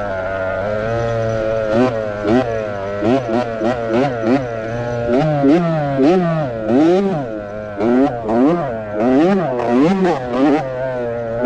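Kids' motocross bike engine revving up and down as the rider works the throttle through the race. Fairly steady at first, then from about five seconds in the pitch rises and falls roughly once a second, with short loud blasts of noise over it.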